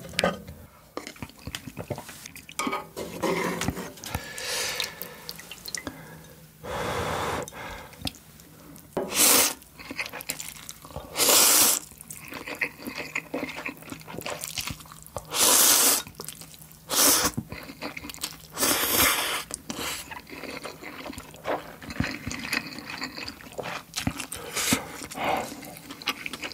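A person slurping hot instant ramen noodles and broth, close up. There are several loud wet slurps about two to four seconds apart, with smaller mouth and chewing noises and light utensil clicks between them.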